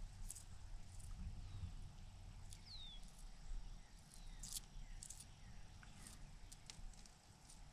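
Faint birds chirping in short high calls, with one clear downward-sliding whistle about three seconds in, over a low rumble.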